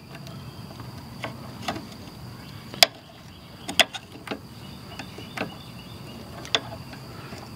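A thin metal tool scraping and tapping against the hardened-grease-caked steering ball stud of a 1930 Ford Model A front end: a handful of short, sharp, irregular metal clicks.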